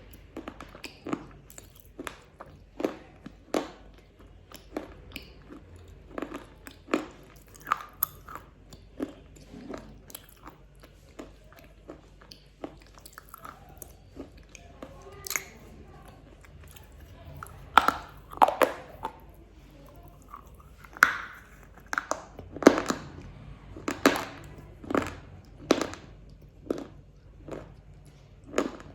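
Close-up crunching and chewing of a black KitKat chocolate wafer: a run of sharp, irregular crunches, louder and closer together in the second half.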